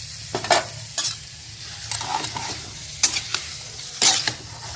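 Chicken sizzling in a pan of sauce while a spatula stirs it, knocking and scraping against the pan about once a second.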